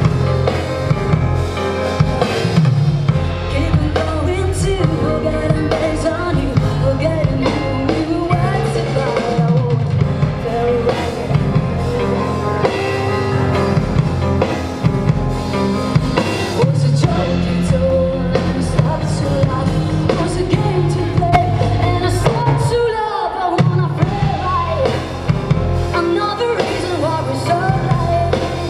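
Live rock band playing at full volume: a drum kit and bass with a singer's voice over them. The low end drops out briefly about two-thirds of the way through, then the full band comes back in.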